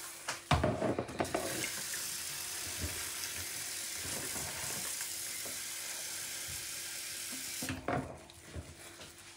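Kitchen tap running steadily for about six seconds into a bowl of apples being washed in salted water. A few knocks and handling noises come just before the water starts and again after it stops.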